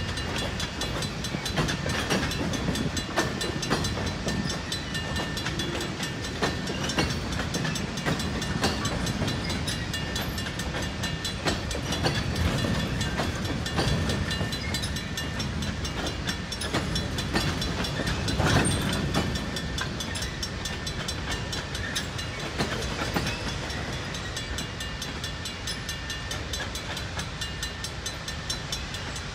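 Freight train of tank cars rolling through a level crossing, wheels clattering on the rails, while the crossing's Griswold mechanical bell rings on in quick, even strokes with a flat, dull tone, the bell being worn flat but still working. The train noise eases near the end as the last car clears.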